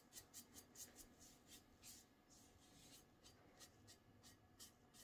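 Faint, quick strokes of a foam sponge brush spreading matte varnish over a painted glass bottle, several strokes a second, thinning out after about two seconds.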